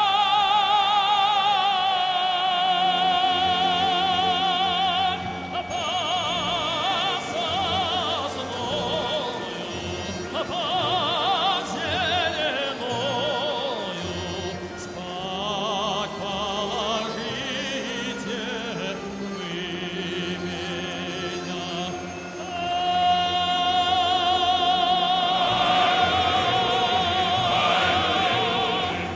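Operatic singing laid over the footage as music: a voice sings with wide vibrato and holds a long high note at the start and again from about two-thirds of the way through.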